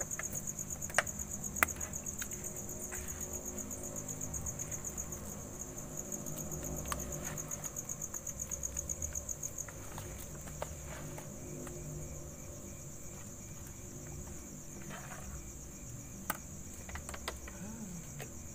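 Crickets trilling steadily at a high pitch, with a few sharp clicks now and then.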